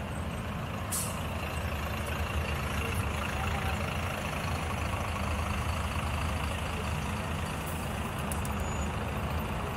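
Steady street traffic with a heavy vehicle's engine running nearby, a continuous low rumble. A brief sharp click about a second in.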